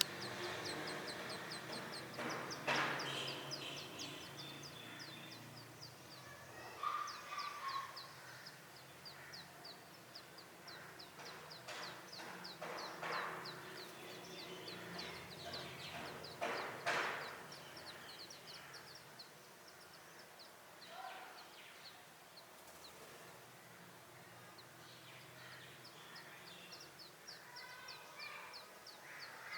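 Brown rock chat nestlings begging: a fast run of thin, high peeps, about five or six a second, that stops for a few seconds past the middle and then starts again. Louder, harsher bird calls break in now and then.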